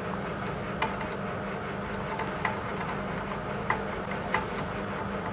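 A few light clicks of a thin metal tool touching the lamp's LED circuit board, over a steady low hum.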